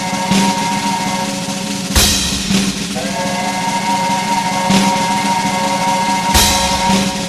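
Instrumental intro music: held chords over a drum beat, with two loud hits, one about two seconds in and another about six seconds in.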